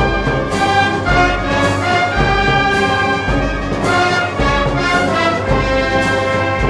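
Brass band playing Moros y Cristianos festival music: held brass chords over a bass line that moves to a new note about once a second.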